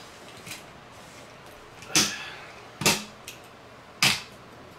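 Hard plastic toy figures and controllers knocking and clicking on a tabletop as they are handled and set down: three sharp knocks with a few faint ticks between them.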